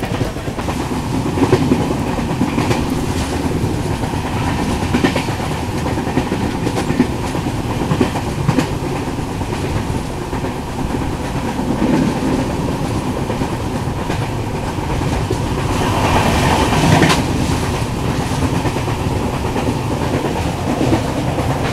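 Passenger train running at speed, heard from on board: a steady rumble of wheels on track with irregular clacks over the rail joints. The noise swells louder for a second or two about three quarters of the way through.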